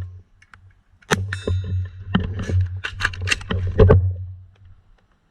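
A run of sharp clacks and knocks, the first about a second in followed by a brief ringing tone, over a low hum, stopping near the end.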